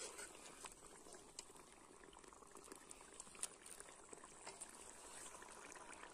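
Faint bubbling of a red masala gravy simmering in oil in a kadhai, with scattered small pops and ticks.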